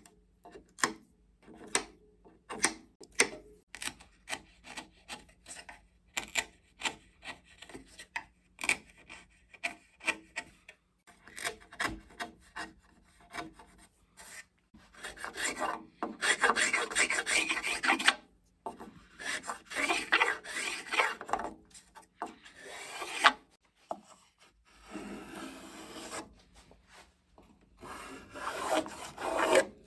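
Scattered small clicks of pins being worked out of a model kayak's wooden deck strip with pliers, then several long passes of wood being scraped and shaved as the oversized deck edge is faired in with a hand tool.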